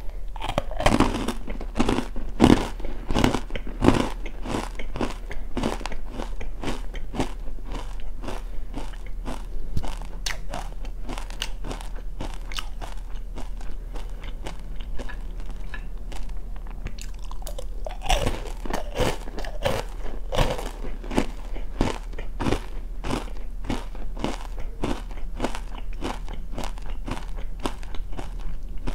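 Close-miked crunching and chewing of oranda, a Korean snack of puffed grains stuck together with a hard syrup glaze, as mouthfuls are bitten and chewed. Dense crisp crackling runs throughout, with louder crunching bites in the first few seconds and again a little past halfway.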